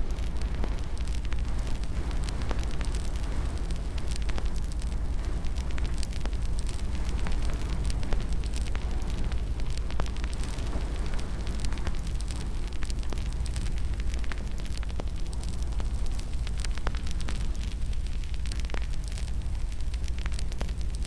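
Wood fire crackling in a fireplace: many sharp pops and snaps scattered over a steady low rumble of burning.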